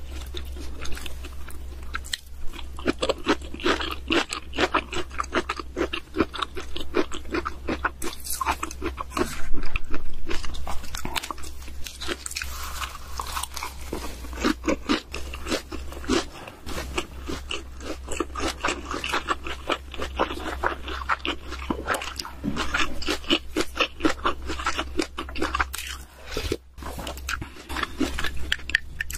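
Close-miked chewing and crunching of raw food: a dense, irregular run of crisp bites and wet mouth sounds, loudest about ten seconds in, over a steady low hum.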